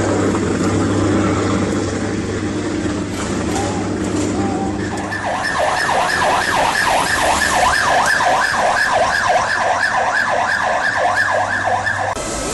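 Emergency vehicle siren in a fast yelp, sweeping up and down about three times a second, starting about five seconds in. Before it there is a steady low hum.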